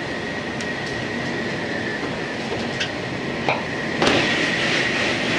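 185-series electric train running, heard from inside the cab, with a steady high-pitched tone and a couple of sharp clicks from the wheels over rail joints. About four seconds in, a sudden rush of noise as another train passes close alongside.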